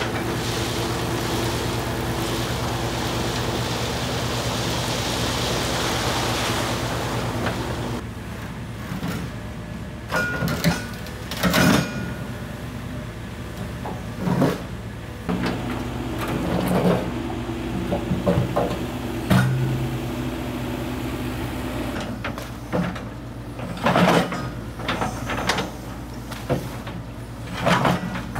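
John Deere tracked excavator's diesel engine running steadily, with a rushing hiss over it for the first several seconds. After that, sharp knocks and clanks come again and again as the steel bucket works among the rocks in the streambed.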